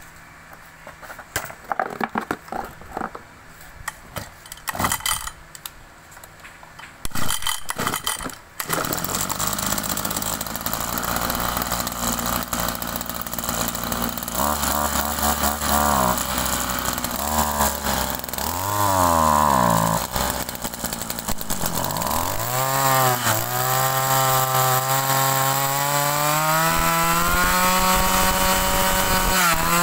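Mitsubishi TL260 brush cutter's small two-stroke engine. For about the first eight seconds there are only scattered clicks and knocks; then the engine starts and runs. It is revved up and down several times, then climbs to high revs and holds there near the end.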